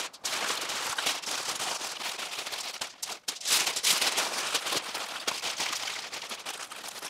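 Crinkling and crackling of a wrapping sheet being folded tightly around a rack of smoked beef ribs, with brief breaks.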